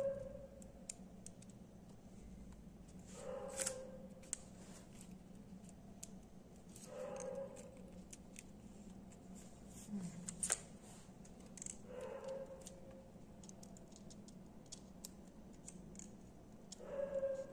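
Scattered small clicks and light scrapes of fingers and a thin metal tool working the opened internals of a Redmi Note 7 Pro while a replacement battery's connector is fitted. A faint short hum comes and goes every few seconds.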